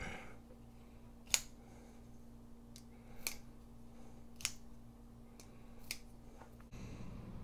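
A few sharp, faint clicks from an Amare Field Bro axis-lock folding knife being worked in the hand just after reassembly, the blade and lock snapping as it is opened and closed; the clearest click comes about a second in.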